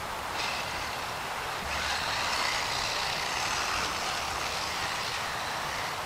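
Brushless motor of a DEERC 300e 1/18-scale RC monster truck whining as it is driven, over a hiss of tyre and drivetrain noise. It gets louder about half a second in and again near two seconds as the throttle is opened, then eases off.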